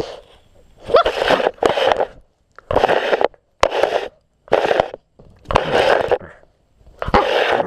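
Springer spaniel puppy mouthing and chewing a GoPro camera, its teeth and mouth scraping and crunching on the housing right at the microphone in about seven separate rough bursts, with clicks among them.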